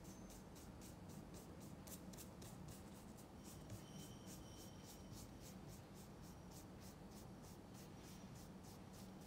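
Paintbrush scrubbing oil paint onto canvas: faint, rhythmic, scratchy strokes, about four a second, back and forth.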